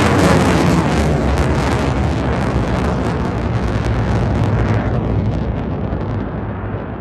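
Loud jet noise from an F-35A's Pratt & Whitney F135 turbofan flying its display overhead, a deep rumble with a ragged crackle. About five seconds in the hiss fades and the sound eases a little.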